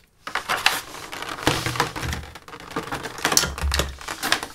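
Test equipment and cables being handled and swapped on a workbench: irregular clicks, clatter and rubbing, with a few dull knocks.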